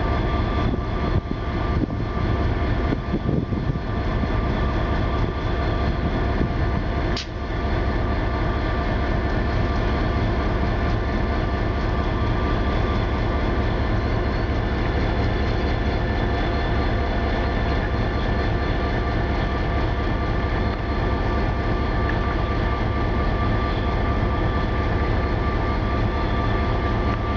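Diesel engine of a Metra EMD F40PH locomotive running steadily after being started, a constant hum with steady whining tones over it. A single sharp click sounds about seven seconds in.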